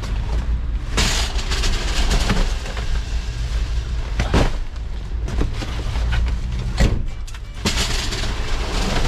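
Cardboard cartons rolling down a metal roller conveyor into the back of a van and being set down on the floor, with a couple of sharp thuds. A steady low hum runs underneath.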